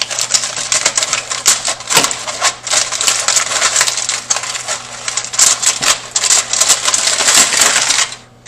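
Aluminum foil crinkling and crumpling as it is peeled off a covered bowl, a dense run of sharp crackles that breaks off shortly before the end.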